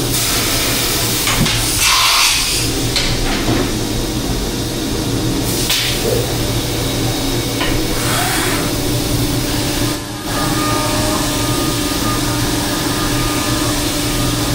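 Haas VF-4SS CNC mill machining a part on a 5-axis rotary table: a steady machine hum with a few brief hissing swells and a short dip a little past the middle.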